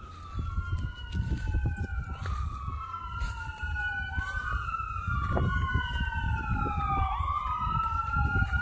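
Several emergency-vehicle sirens wailing at once, their slow rising and falling wails overlapping out of step, over a low rumble.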